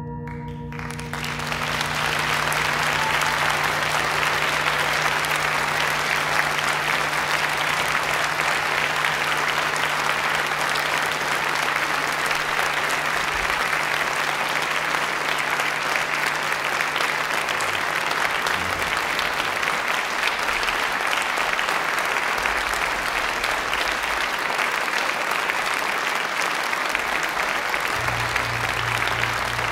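Audience applauding steadily, starting about a second in as the last ringing notes of the gamelan's bronze metallophones and gongs die away.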